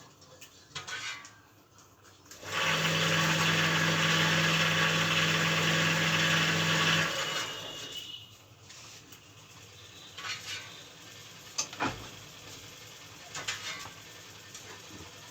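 An electric motor-driven machine runs with a steady hum and whirr for about four and a half seconds, then winds down. Scattered clicks and knocks follow, with a sharp knock near the end.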